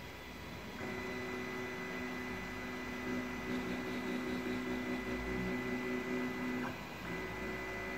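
Anet A8 3D printer running a print: its stepper motors whine in steady tones as the print head and bed move, starting about a second in and pausing briefly near the end before resuming, over a steady hiss.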